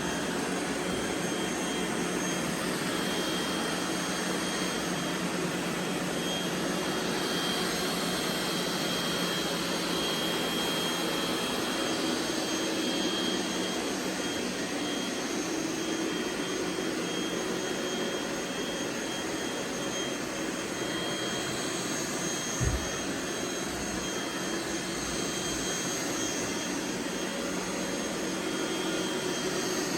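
Several robot vacuum cleaners running together, a steady whir with a thin high whine over it. A single brief thump comes about three-quarters of the way through.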